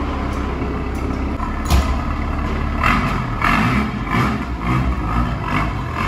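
Car engine running with a steady low rumble. From about three seconds in, louder uneven bursts come over it.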